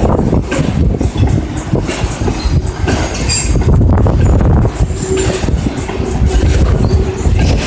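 Freight train wagons rolling past, a heavy low rumble with wheels clattering over rail joints and a couple of brief high wheel squeals.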